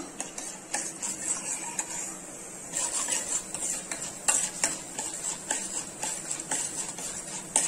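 Steel ladle stirring chana dal and urad dal as they roast lightly in a little oil in a stainless steel kadai: irregular scrapes and clinks of the ladle on the pan over a steady faint sizzle.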